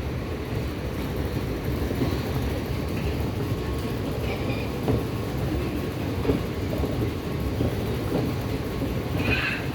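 Dubai Metro Red Line train running, a steady low rumble.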